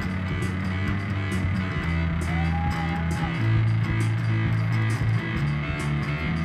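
A rock band playing live, led by a steadily moving electric bass line with keyboards over a steady beat. A short held high note sounds about two and a half seconds in.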